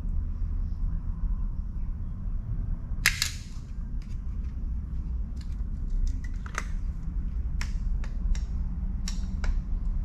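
Metal hand tools and hardware clinking and clicking while bolts are worked loose, with one loud sharp clank about three seconds in and scattered lighter clicks later, over a steady low hum.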